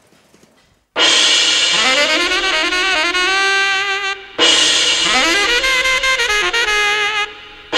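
Instrumental closing music: after a moment of quiet it starts suddenly about a second in, a single melody line played in phrases with short breaks between them.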